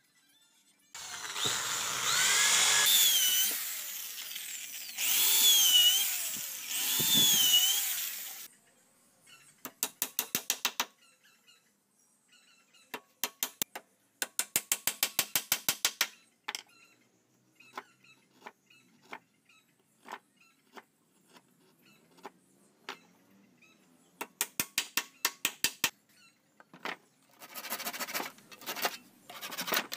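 Power drill boring into wood for several seconds, with a wavering squeal, followed by short bursts of rapid clicking and scattered single taps of a hammer on the wooden frame.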